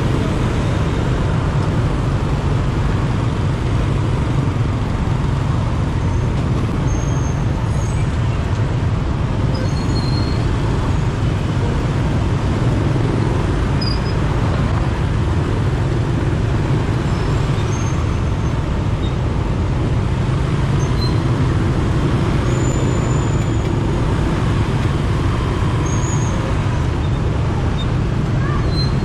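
Steady road traffic noise from dense city traffic: a continuous low rumble of engines and tyres, with a few faint short high tones.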